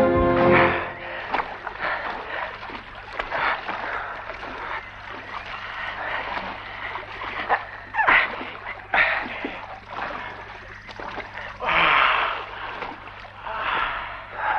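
Water splashing as people wade through shallow water, in uneven surges with a few louder splashes.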